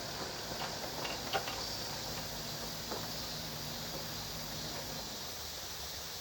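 Outdoor ambience at a flood-repair site on a stream: a steady rushing noise with a low machine hum under it, and a few faint knocks in the first three seconds.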